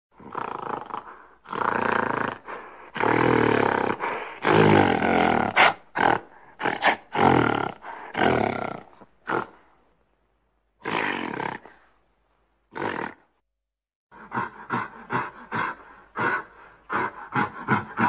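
Gorilla vocalising: long, loud roars through the first half. After a few seconds with only two short calls between silent gaps, a quick run of short grunts follows, a few a second.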